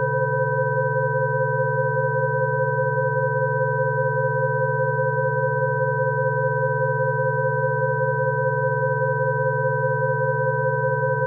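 Electronically generated Rife-frequency tones: several pure sine tones held together without change, a low hum-like tone under higher, thinner tones.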